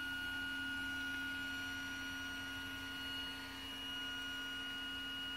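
Stepper motor of a Flsun Kossel delta 3D printer whining at one steady pitch as it drives a tower carriage down at constant speed, a stepper travel calibration move.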